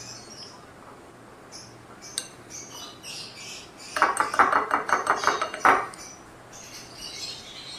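A plastic spatula stirring a thick, wet chicken marinade in a glass bowl and scraping the glass, in a quick run of about six strokes a second lasting under two seconds, starting about four seconds in.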